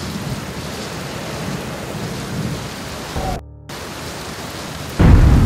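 Steady rushing noise with a low rumble, broken by a short dropout about three and a half seconds in. A sudden loud, deep boom comes in about five seconds in.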